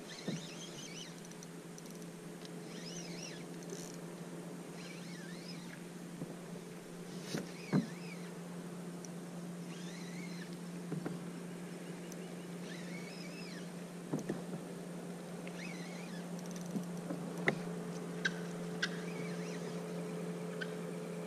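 A steady low hum with birds chirping at intervals over it, and a few sharp knocks, about a third of the way in and again near the end.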